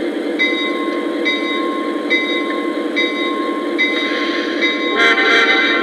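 Lionel Legacy O-scale Norfolk Southern SD90MAC model locomotive's onboard sound system playing a steady diesel engine rumble, with a short higher tone repeating about once a second. Near the end a brief louder, higher sound cuts in over it.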